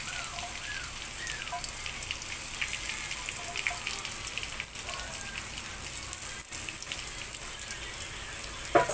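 Cut taro stems (takway) frying in hot oil with onion, garlic and ginger: a steady sizzle full of fine crackles and pops. A single sharp knock comes near the end.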